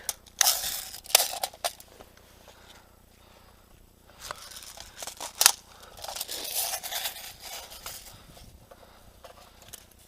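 Irregular bursts of crunching, scraping and rustling with a few sharp clicks, the loudest click about five and a half seconds in: a player moving in snow with clothing and gear.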